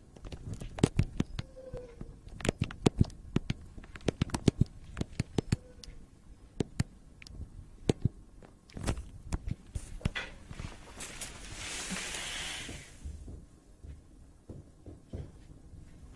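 Basset hound's claws clicking on a ceramic tile floor as it walks, many sharp separate ticks in uneven bursts. About two-thirds of the way through, a breathy hiss lasts a couple of seconds.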